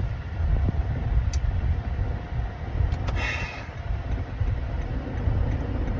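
Steady low rumble, with one brief higher sound about three seconds in.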